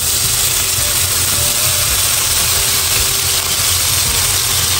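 Soy sauce hitting a hot nonstick frying pan and sizzling steadily around two pan-fried yellowtail fillets, a loud continuous hiss as the sauce bubbles in the oil.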